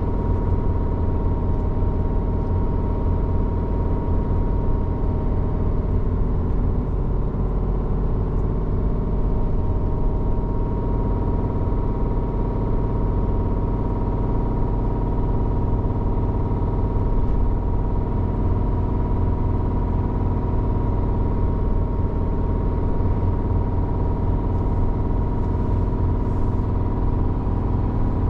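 Scania truck's diesel engine running at a steady cruise, a constant drone heard inside the cab while driving, with a slight dip in pitch a few seconds in.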